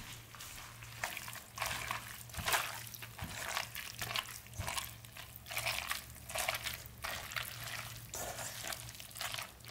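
Bare hands squelching through a wet mix of spiralized zucchini, raw egg and cheese in a stainless steel bowl, in repeated squishes about one or two a second.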